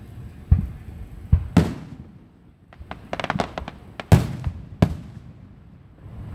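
Fireworks exploding: several sharp bangs with a rumbling tail, the loudest about four seconds in, and a quick run of crackling pops just before it.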